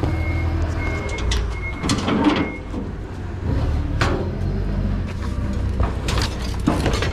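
A vehicle idles with a steady low rumble while a warning chime beeps in short repeated tones for the first two and a half seconds. Then come knocks and rattles of a door being slid open.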